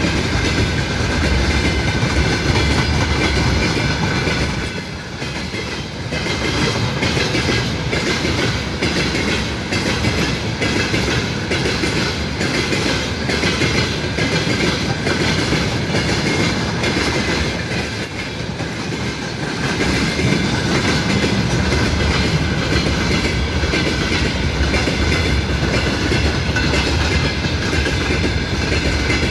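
A train's cars rolling past at close range, wheels clacking steadily over the rail joints, the noise dipping briefly twice.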